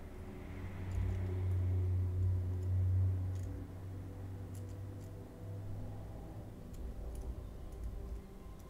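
Faint, scattered small metallic clicks as tweezers fit a thin wire suspension spring onto a diecast toy car's metal base, over a low hum that is loudest in the first half.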